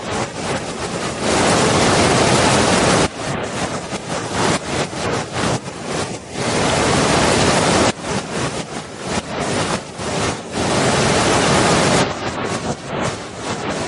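Waterfall rushing: a loud, dense roar of falling water. It swells into full steady stretches and breaks into choppier, wavering ones every few seconds.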